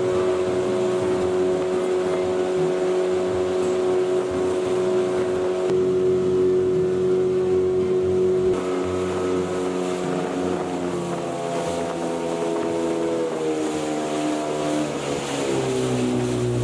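Outboard motor driving a small aluminium boat at a steady pitch, then throttled back about halfway through, its note stepping down several times as the boat slows.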